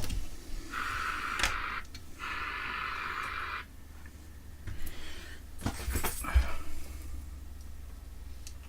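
Hands working on a UPS during reassembly: two steady whirring noises of about a second each, then a few sharp clicks and knocks of metal parts being fitted.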